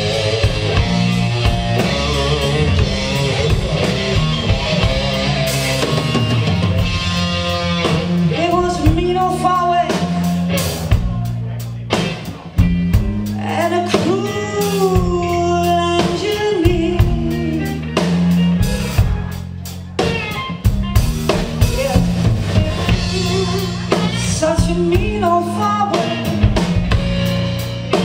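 Live band playing: electric guitar, bass guitar and drum kit, with a woman singing lead.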